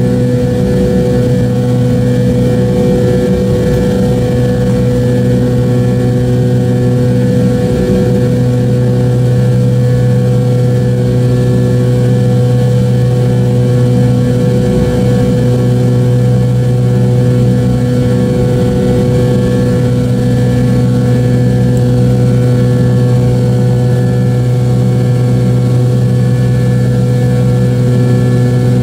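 Steady drone of the MD-88's rear-mounted Pratt & Whitney JT8D-219 turbofan engines, heard from inside the cabin close to the engine: a loud low hum with several steady tones, some of which waver in a slow beat.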